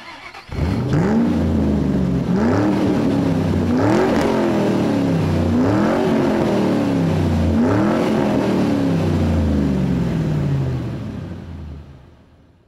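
Car engine revving, its pitch climbing and sinking back about five times, then fading out near the end.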